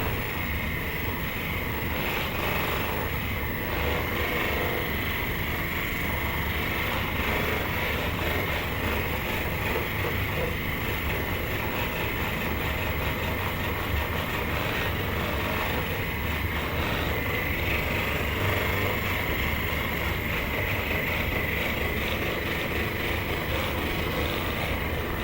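A machine running steadily: a continuous low rumble with a constant high whine over it.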